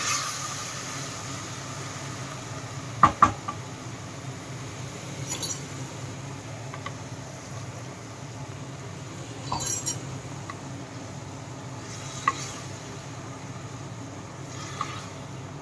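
Wooden spatula stirring a thick, watery curry in a nonstick kadai, with sharp knocks of the spatula against the pan now and then, the loudest a quick pair about three seconds in, over a steady low hum.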